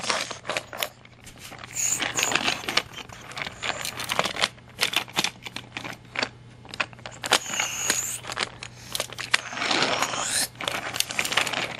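Toy trains clicking and clattering on plastic toy track as they are pushed, lifted and set down by hand, with many small knocks. A longer scraping rush about ten seconds in.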